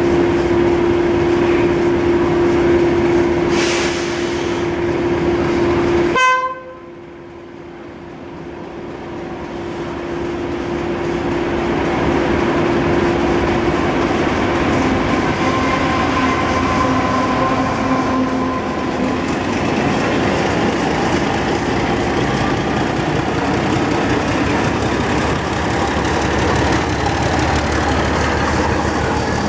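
Class 31 diesel locomotive's English Electric V12 engine running with a steady hum, cut off abruptly about six seconds in. The engine then builds up again as the test train pulls away, and its coaches rumble past with wheels clicking over the rail joints.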